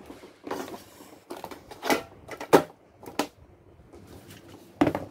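Mooncake gift boxes being handled and shifted by hand: irregular taps, knocks and rustles of cardboard, the sharpest about two and a half seconds in and another near the end.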